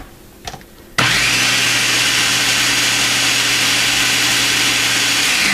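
Food processor switched on about a second in, its motor running steadily as it purees cauliflower mash. It cuts off near the end, the pitch falling as the blade spins down.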